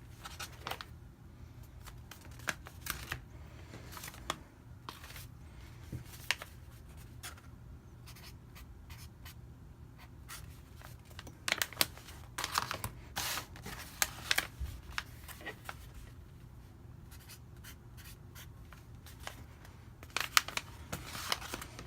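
Felt-tip marker writing on the backs of bags and the bags being handled: scattered short rustles and taps, busiest about halfway through and again near the end.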